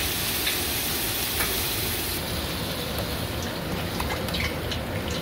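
Water hitting a hot wok of fried tomato and soy sauce, sizzling and hissing over a steadily running gas wok burner; the hiss eases after about two seconds as the sauce comes to the boil. A few light clicks now and then.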